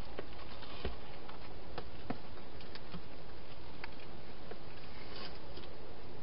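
Scattered small clicks and scratches at an irregular pace from a wild hedgehog moving about inside a plastic feeding box, over a steady hiss.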